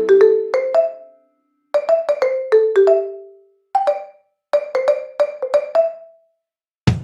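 Background music: short phrases of quick struck notes like a marimba, with brief pauses between them.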